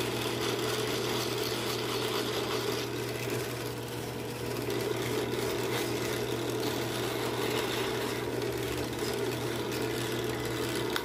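Bench drill press running steadily on its second speed, with a sheet of sandpaper pressed against a bolt spinning in its chuck to smooth the cut end and take off the burr. Right at the end the motor is switched off and starts to wind down.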